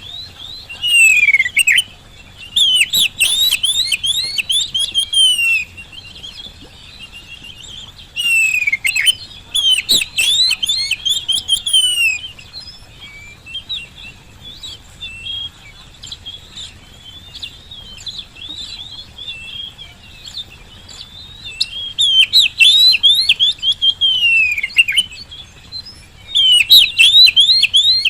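Oriental magpie-robin in full song: loud phrases of varied whistles, glides and fast chattering notes lasting a few seconds each, with quieter twittering between them. This is the persistent song of a bird in top singing form, used to prompt other magpie-robins to sing.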